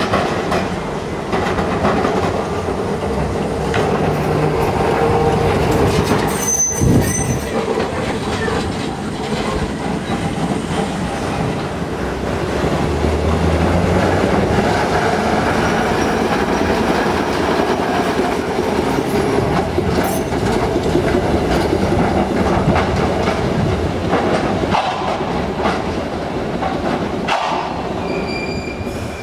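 Electric heritage streetcar running on its rails, with a brief high squeal from the wheels about seven seconds in.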